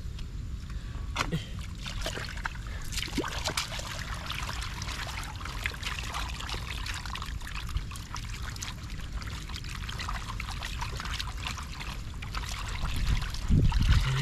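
Muddy water splashing, trickling and pouring, with many small sharp splashes, as fish are scooped by hand from a shallow drying field pool. A steady low rumble runs underneath, and a louder low thump comes near the end.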